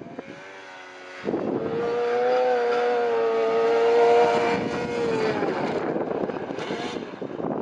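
Snowmobile engine, faint at first, then loud from about a second in, held at high, steady revs for a few seconds before turning rougher near the end.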